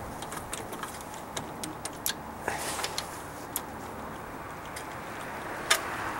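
Scattered light metallic clicks and clinks as a socket and extension are taken off a P-7100 injection pump's delivery valve holder by gloved hands, with one sharper click near the end.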